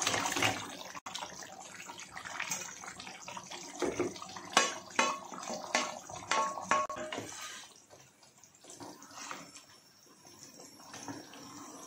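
Fried potato pieces dropping and sliding into thick gravy in a kadhai, with a string of short knocks as a spatula scrapes them off a steel bowl, all with a wet, squelchy edge. After about eight seconds it turns quieter, with soft wet stirring of the gravy.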